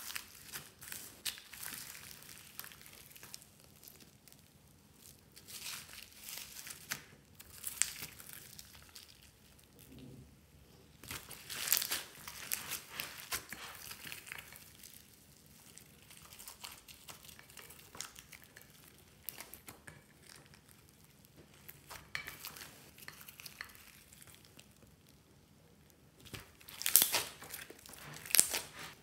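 Foam balls and beads crackling and crunching as hands press and knead them into slime, in irregular spells, louder about twelve seconds in and loudest near the end.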